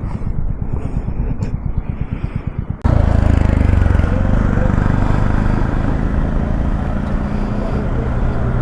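Motorcycle engine idling with a fast, even run of low thumps. About three seconds in, it cuts abruptly to a louder, steady rush of wind noise over the mic with the engine underneath, as the motorcycle rides at speed.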